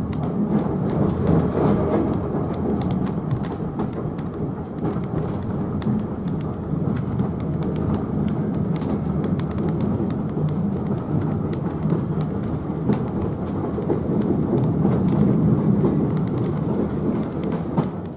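Steady rumble and rattle of a heritage railway carriage running along the track, heard from on board, with frequent small clicks and knocks.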